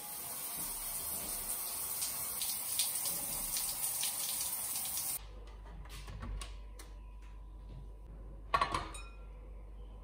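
Tap running into a sink for about five seconds, then turned off abruptly; afterwards a few light clicks and one louder knock near the end.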